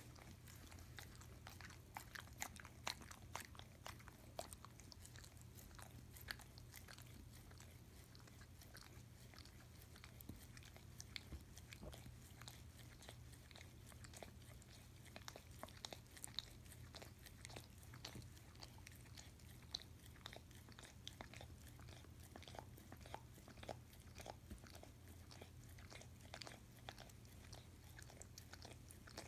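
A dog eating peanut butter off a spoon, its mouth smacking and licking in a faint, steady run of many small clicks, over a low hum.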